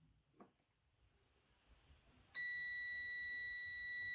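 Multimeter continuity beeper sounding a steady high-pitched tone that starts suddenly a little over two seconds in, after a faint tick of the probes touching. The beep shows continuity: the second conductor of the air fryer's power cord is intact.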